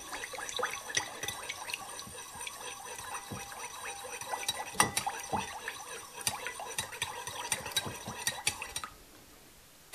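A spoon stirring thin liquid in a ceramic bowl, with a steady run of light clinks against the bowl. The stirring stops about a second before the end.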